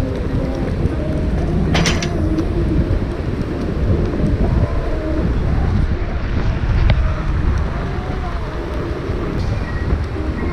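Wind buffeting the microphone over a steady low rumble while riding a Onewheel XR on its Hoosier Slick tyre, with one sharp click about two seconds in.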